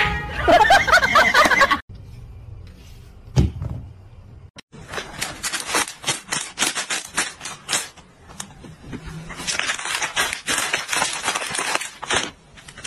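Plastic packaging crinkled by hand: a long run of rapid, irregular crackles starting about five seconds in. A person laughing briefly at the very start.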